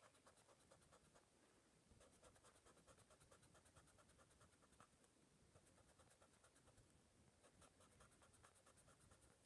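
Faint rubbing of a plastic block eraser on sketch-pad paper, in rapid back-and-forth strokes with a couple of brief pauses, erasing pencil lines.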